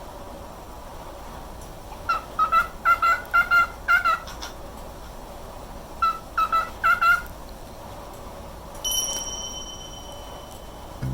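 Cockatiel whistling its song in quick, wavering vibrato notes: a run of about eight notes, a pause, then four more. Near the end, a steady high tone holds for about a second and a half.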